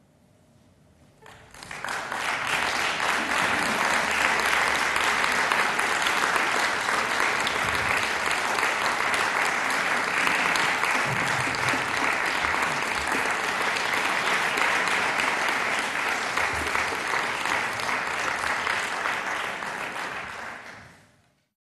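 Audience applauding: after a brief hush the clapping starts about a second and a half in, holds steady and thick, then fades out quickly near the end.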